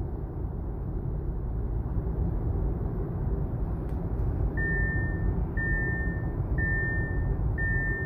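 Steady low road and engine rumble heard inside the cabin of a 2021 Audi A6 driving at about 40 mph. From about halfway through, a high electronic chime sounds in long beeps, each nearly a second long, about once a second.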